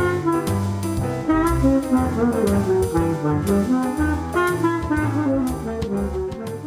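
Background music: a tune over a walking bass line with light, regular percussion ticks, starting to fade near the end.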